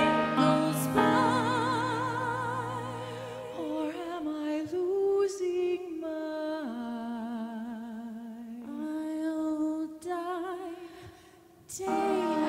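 Two women singing a ballad duet in held, vibrato-laden notes over a small live band. The accompaniment thins after a few seconds, the music falls to a hush about eleven seconds in, and the voices and band swell back in just before the end.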